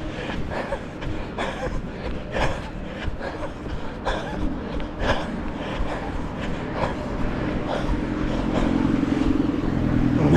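Wind buffeting the microphone in a low rumble, with a runner's footfalls knocking at regular intervals. About three-quarters of the way through, a steady motor hum, like a passing vehicle, grows louder.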